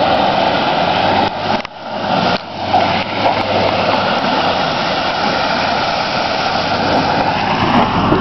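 Pickup truck engine revving hard as the truck is driven through a deep mud hole, its wheels churning mud and water. The noise drops briefly about two seconds in, then runs on.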